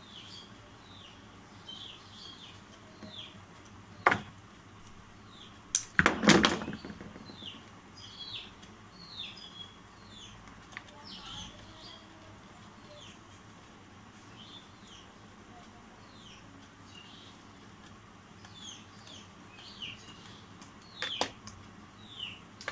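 Small birds chirping over and over, short falling chirps high in pitch, with a few sharp clicks and knocks from handling wires and parts on the table, the loudest cluster about six seconds in.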